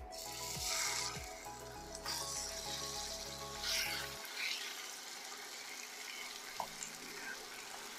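Seasoned raw chicken breast pieces sizzling as they drop into hot oil in a frying pan, swelling in several bursts as each batch is scraped in with a wooden spoon, then settling into a steady sizzle.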